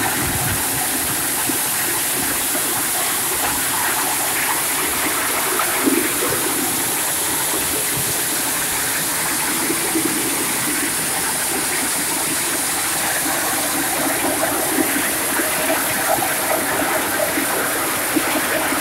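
Tractor-driven maize thresher running steadily while corn cobs are fed in, making a dense, even rushing noise as the drum shells the cobs and the kernels stream out. A few short knocks stand out here and there, mostly near the end.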